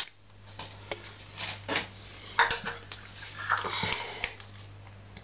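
Irregular clicks and clattering as fire alarm hardware is handled to set off a test, with a steady low hum underneath; no sounder goes off.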